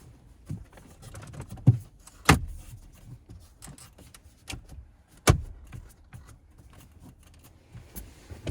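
Plastic interior trim panels of a pickup truck being handled and pressed back into place, with a few sharp snaps and knocks, the loudest about two and five seconds in, among quieter rustling and tapping.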